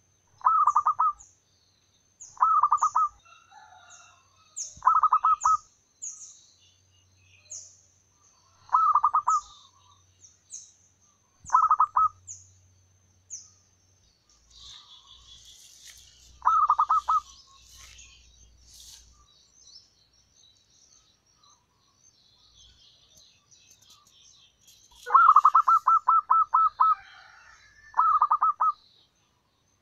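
Zebra dove (perkutut) cooing: short bursts of rapid staccato coo notes repeated every few seconds, with a longer, denser run of them near the end. High, thin descending chirps from another small bird repeat through the first half, and there is a patch of twittering in the middle.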